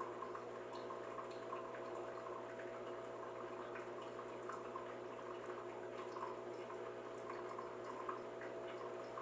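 Faint small ticks and soft handling sounds as melted chocolate is spread by hand onto the bottom of a spritz butter cookie, over a steady hum.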